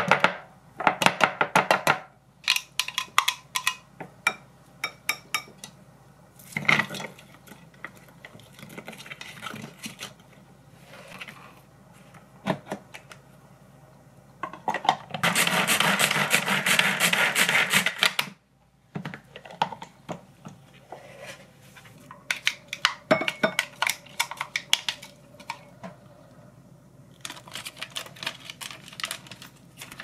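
Clicks, knocks and scraping of a plastic food chopper and a glass bowl being handled. About halfway through, a pull-cord manual food chopper is yanked repeatedly for about three seconds, its blades spinning with a loud, rapid whirring.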